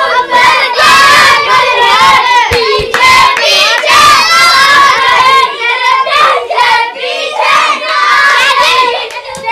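A group of boys singing a Hindi song together loudly, their voices overlapping, with some hand clapping.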